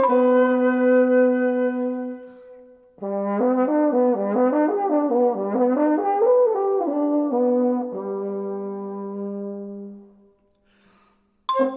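French horn playing a long held note, then a passage of moving notes, ending on a long low note that fades away. Marimba notes come in right at the end.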